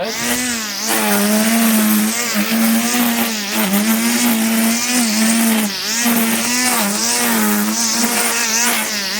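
String trimmer (weed whip) running at high speed to cut grass, its engine note wobbling down and back up as the line bites into the grass.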